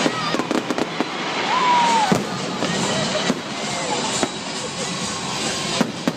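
Stadium fireworks display: dense crackling and popping with several sharp bangs, over the voices of the crowd.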